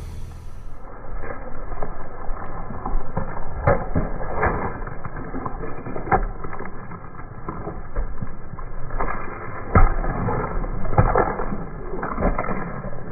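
A car tyre rolling onto whole watermelons and crushing them: an irregular run of crunching and sharp cracks as the rinds split, the loudest crack about ten seconds in.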